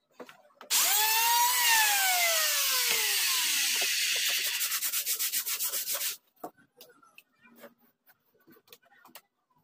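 A power tool run against wood, probably sanding plywood. It makes a loud, gritty noise about five seconds long with a motor whine that rises and then sinks in pitch, and it stops abruptly.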